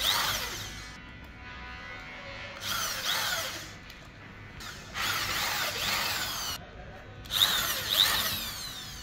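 Corded electric drill running in four short bursts, its motor pitch rising and falling each time, as it works through the holes of a metal lathe faceplate into a coconut palm log.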